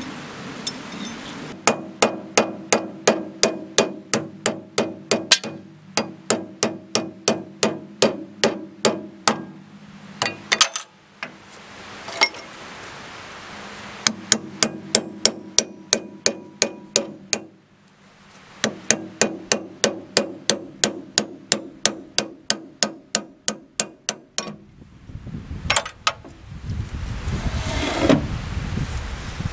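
Hammer driving cast steel wedges into the joint of a heavy bandsaw vise unit to split it off, in quick runs of about three sharp blows a second broken by short pauses. Near the end the hammering stops and a low scraping rumble follows as the loosened casting is moved.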